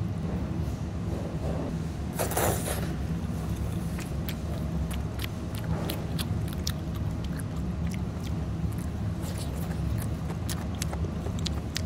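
Steady low hum with many short light clicks and clinks of metal utensils against plastic dishes, and a brief rushing noise about two seconds in.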